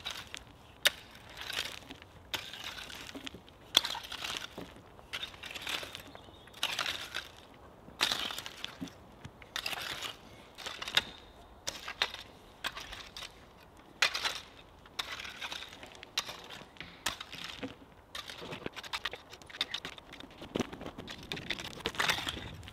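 A long-handled tool scraping and dragging loose soil, in repeated strokes about one a second, with occasional sharp clicks.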